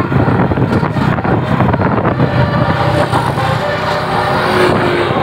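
Tour bus driving past close by, its engine running loud and steady.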